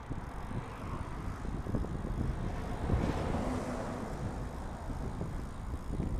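Wind rushing over a bicycle-mounted camera's microphone, with low road rumble from the moving bike. Traffic noise swells to a peak about three seconds in and eases off, like a car going past.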